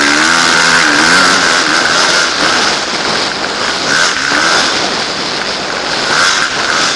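Motocross dirt bike engine revving hard, its pitch rising and falling repeatedly as the throttle is worked, heard from the rider's helmet camera over a steady rush of wind noise.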